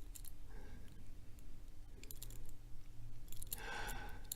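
Faint, scattered clicks of a pick and tension wrench working the pins inside a Sesamee 533 steel padlock during picking.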